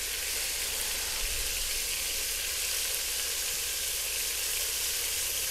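Hot oil sizzling steadily in a deep pot where strips of beef are being browned: an even, continuous frying hiss.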